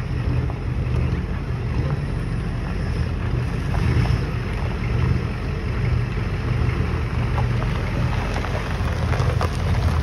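Vehicle engines running at low speed as cars and a pickup roll slowly past: a steady, low rumble. A few light clicks come near the end.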